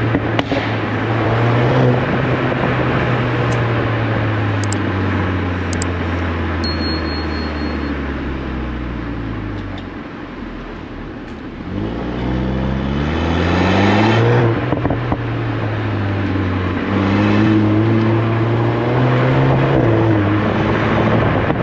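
VW Golf 8 R's turbocharged four-cylinder through its Akrapovič exhaust, driving: the engine note holds steady, then drops and goes quieter about halfway as the throttle comes off. It then climbs steeply under hard acceleration, falls back at a gear change and climbs again near the end.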